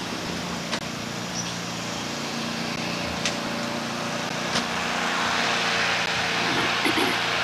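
A small engine running steadily, growing louder about five seconds in, with a few sharp clicks along the way.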